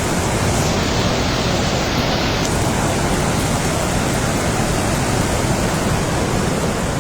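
The Teesta River in flood, its fast water rushing by in a steady, even wash of noise.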